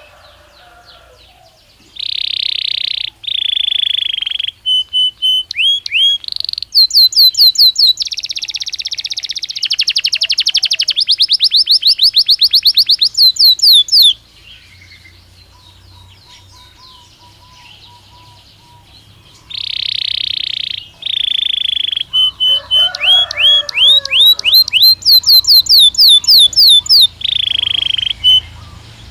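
Belgian canary singing two long song phrases with a pause of about five seconds between them. Each phrase strings together held rolling notes and fast trills of quickly repeated notes.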